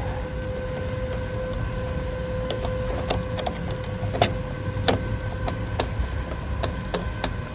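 A steady mechanical drone with a constant whine, the noise the scrapper calls irritating, with sharp clicks and taps of hard parts being handled and unscrewed from about two and a half seconds in.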